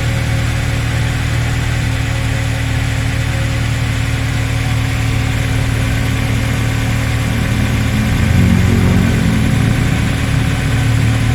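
Nissan Serena C23 engine idling steadily, briefly louder about eight seconds in. The engine has a rattling 'krotok-krotok' noise, which the mechanic puts down to a loose timing-chain damper moving up and down.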